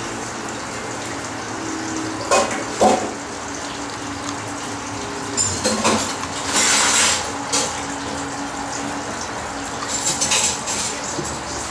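A few short, sudden sneezes spread out over several seconds, with the longest and brightest about halfway through, over a steady rushing noise.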